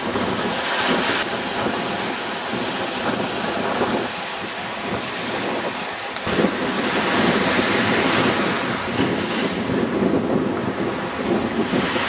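Sea surf washing over and around sand-filled geotubes in shallow water, with wind buffeting the microphone; the surf and wind swell a little louder about halfway through.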